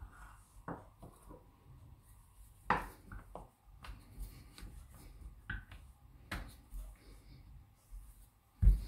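Rolling pin rolling chapati dough on a stone countertop: a low rumble with scattered knocks and taps as the pin moves, and a louder thump near the end.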